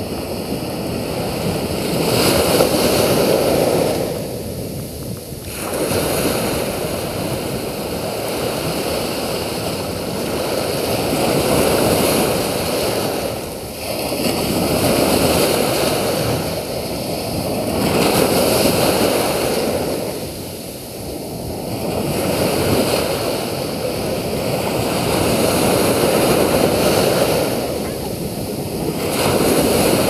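Small sea waves breaking and washing up a sandy beach, the surf swelling and falling back every three to five seconds.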